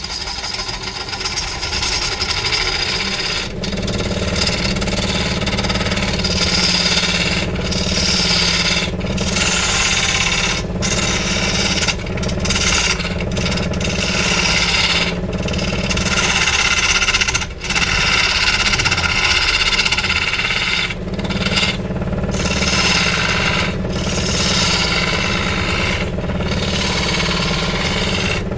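Chainsaw running and cutting into wood, with many brief dips in its sound.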